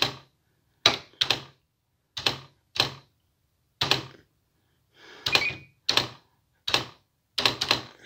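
Typing on a Smith Corona PWP-3800 electronic typewriter: about a dozen sharp, separate clacks at an uneven pace, a few quick ones in a row near the end.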